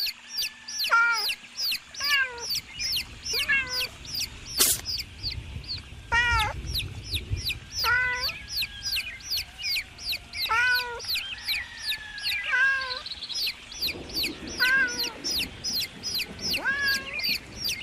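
A group of baby chicks peeping high and fast, several short falling peeps a second, with a lower, longer call every second or two. A single sharp knock about five seconds in.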